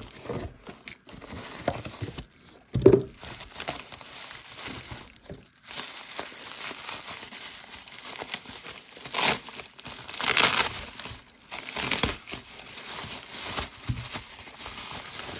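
Packaging being unwrapped by hand: irregular crinkling and rustling, louder in two stretches around nine and ten seconds in. A brief thud about three seconds in is the loudest sound.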